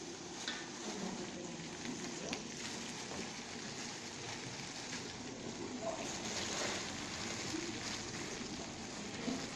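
Frying pan sizzling with a steady, rain-like crackle as bread crumbs for migas are poured in from a plastic bag onto frying sausage and tomato and stirred with a wooden spatula.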